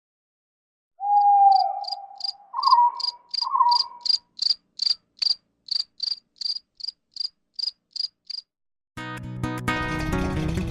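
Cricket chirping steadily, short high chirps about three times a second, with a louder whistle-like tone that swoops up a few times over the first few seconds. About nine seconds in, the chirping has stopped and guitar-led music begins.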